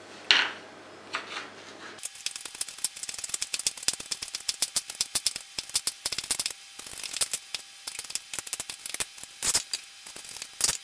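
Kitchen knife rapidly chopping red pepper into small dice on a wooden cutting board: a fast run of blade taps on the board, starting about two seconds in after a single knock.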